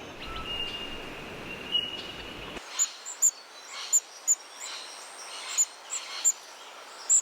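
Small finches calling: about a dozen short, very high, thin calls in an irregular series, starting after an abrupt change in the background noise about two and a half seconds in. Before that there is only outdoor background noise with a faint steady high tone.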